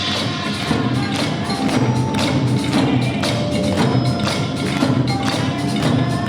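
Nanta ensemble drumming: several players beating drums with wooden sticks in a fast, dense, unbroken rhythm of sharp strikes.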